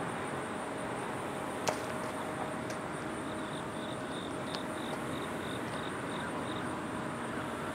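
Steady outdoor background noise with a faint, constant high whine. A short run of faint, evenly repeated chirps comes near the middle, and there is one sharp click about a second and a half in.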